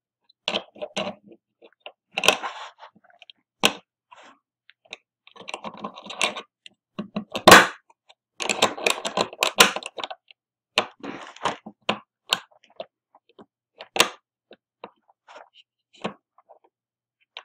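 Small metal parts of a three-lever mortice sashlock being handled and fitted back into the lock case: a run of irregular clicks, taps and short scrapes of steel and brass, with a sharp, louder click about seven and a half seconds in and another near fourteen seconds.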